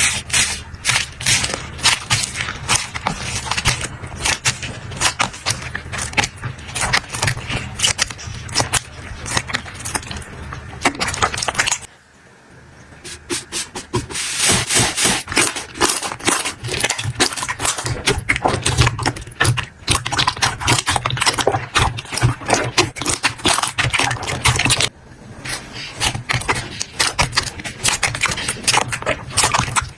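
Hands squeezing, poking and stretching slime: a dense, continuous run of small crackles, pops and squishes, with two short quiet breaks, about twelve seconds in and again near twenty-five seconds.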